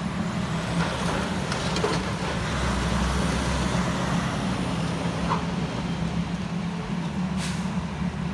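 Heavy diesel engine of a SANY hydraulic excavator running steadily while it tears at a brick wall, with a few faint knocks.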